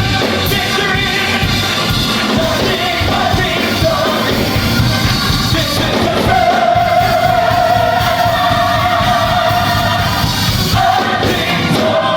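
Gospel choir singing with a full band, one long note held for about four seconds in the second half.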